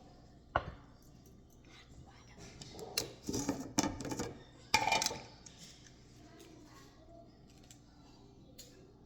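Kitchen clatter of dishes and utensils: a single sharp knock about half a second in, then a busy run of clinks and knocks a few seconds later.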